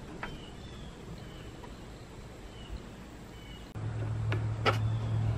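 Quiet outdoor background with a few faint bird chirps, then, about four seconds in, a steady low hum starts suddenly, with two sharp clicks soon after.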